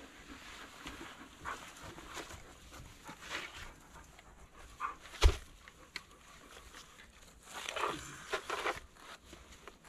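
A dog panting and sniffing close by, over soft rustling and scraping in dry leaves and soil. About halfway through there is one sharp wooden knock as a log is set against another, and there is more scraping near the end.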